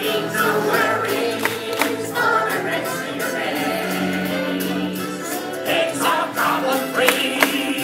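Live stage-show music with a choir singing, with a few sharp percussive hits.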